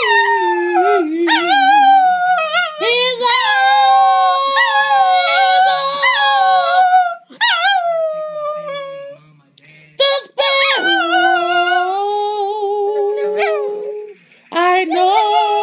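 Small pet dog howling along in long, drawn-out wavering notes, as if singing. The howl breaks off about seven seconds in, goes almost quiet for a couple of seconds, starts again with a couple of short yelps and runs on in long notes, with another brief pause near the end.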